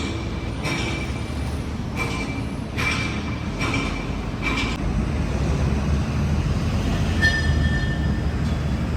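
A rail vehicle running with a steady low rumble and repeated short, high-pitched squeals from its wheels, with one longer squeal about seven seconds in.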